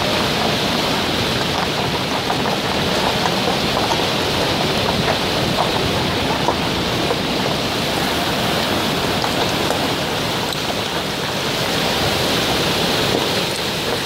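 Fast white-water mountain river rushing over boulders: a steady, unbroken rush of water.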